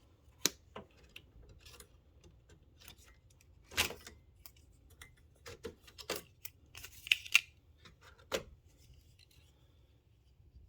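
Desktop RAM modules being removed from their motherboard slots: irregular sharp plastic clicks and snaps of the slot latches, with light rubbing as the sticks are handled, the loudest two snaps close together about seven seconds in.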